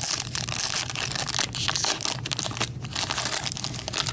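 Crinkling and tearing of a trading-card pack wrapper being ripped open and crumpled by hand, a dense run of quick crackles.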